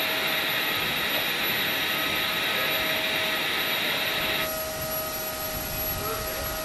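Aircraft turbine running steadily on a flight line: a constant whine of several steady tones over a rushing roar. About four and a half seconds in, the sound changes abruptly and the highest hiss drops away.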